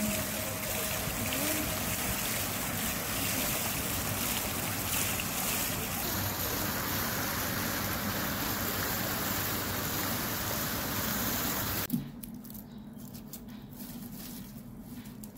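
Large outdoor fountain: a steady rush of spraying and falling water that cuts off suddenly about twelve seconds in. After that comes a much quieter stretch with a few faint rustles and clicks.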